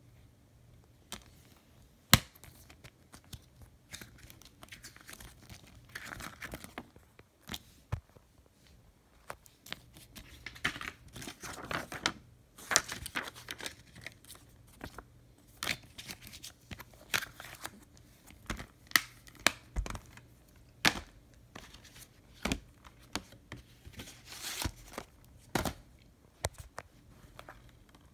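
Plastic Blu-ray and DVD cases being handled: a string of sharp clicks and snaps from the cases opening, closing and being set down, with rustling and scraping of cardboard slipcovers in between.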